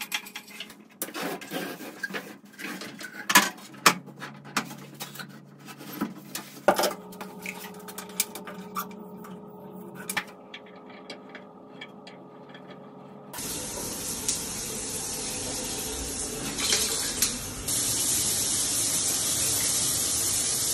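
Scattered clicks and knocks as a VIGO shower panel and its hose are handled, then about two-thirds through the water comes on with a sudden steady rush of shower spray from the panel's square rain head, getting louder and hissier about three-quarters through.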